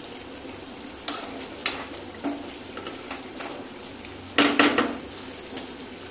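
Thick yogurt gravy with paneer sizzling in a kadai while a wooden spatula stirs and scrapes through it, with a louder stroke about four and a half seconds in. The gravy is being cooked down to thicken it.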